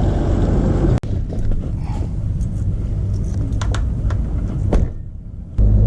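Car engine and road rumble heard from inside a moving car, with a few light clicks. The rumble dips near the end and then returns louder.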